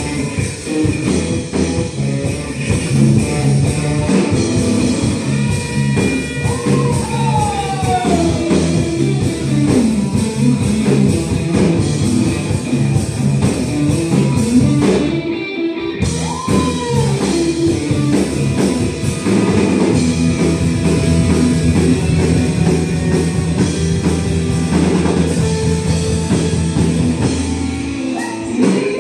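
Live worship band playing through a church's house PA speakers: electric guitar (a Greco Stratocaster through a Line 6 HX Stomp straight into the mixer, no guitar amp) with keyboard and drums, and singing.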